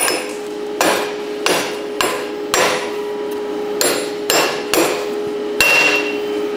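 Steel hammer blows, about nine at an uneven pace, knocking a stripped nut that has been partly cut through with a plasma cutter off a truck's front wheel hub. The last blow, near the end, rings a little longer. A steady hum runs underneath.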